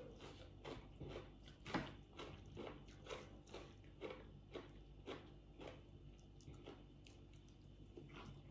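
Faint close-up chewing: soft wet mouth clicks and light crunches, about two a second, as green papaya salad and fried fish are eaten, thinning out near the end.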